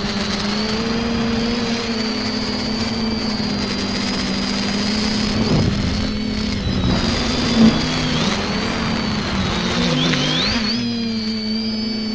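Electric motors and propellers of an X550 quadcopter, recorded by its onboard camera: a steady buzzing drone whose pitch dips and rises with throttle changes, most clearly near the end, with a brief louder blip about seven and a half seconds in.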